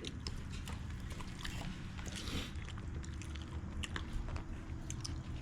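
Someone eating close to the microphone: many small, irregular chewing and crunching clicks over a steady low rumble.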